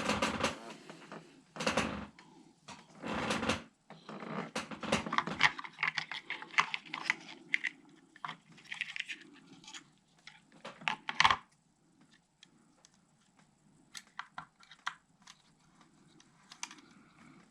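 Small hand tools being picked up and put down, a run of irregular sharp clicks and rattles with one louder knock about eleven seconds in, then sparser, fainter clicks.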